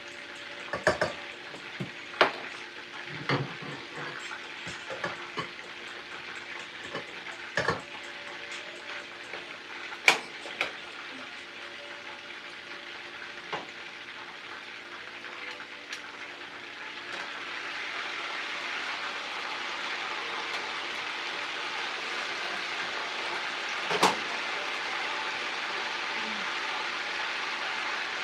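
Chicken sizzling in a skillet on an electric stove, a steady frying hiss that grows louder about two-thirds of the way through. Utensils clink and knock against the pans several times, with one sharp knock near the end.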